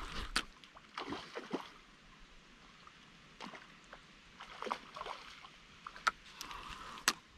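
Faint splashing and sloshing of a hooked fish being pulled out of lily pads, with scattered short clicks and knocks of fishing tackle being handled.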